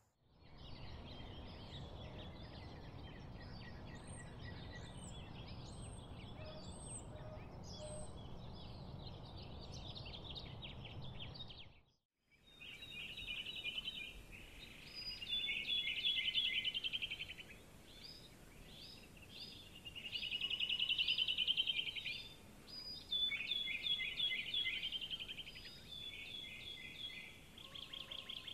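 Outdoor chorus of chirping birds over a low, steady rumble. After a brief break about twelve seconds in, louder bursts of fast, rattling chirped trills rise and fall.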